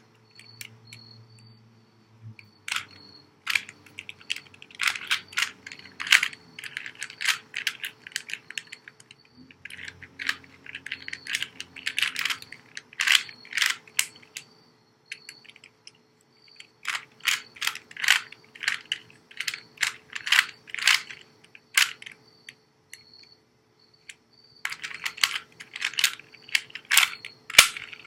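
Rubik's cube being turned by hand: quick runs of plastic clicks and clacks as the layers are twisted, in bursts of a few seconds with short pauses between them.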